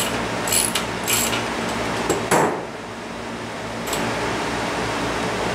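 Light metallic clinks of hand tools and fender hardware as a moped's front fender is fitted over the wheel, a few sharp ticks in the first second and one short louder scrape a little after two seconds, over a steady shop-fan hum.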